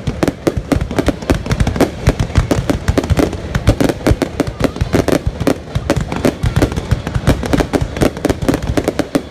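Fireworks going off in a dense, continuous barrage of sharp bangs and crackles, several every second.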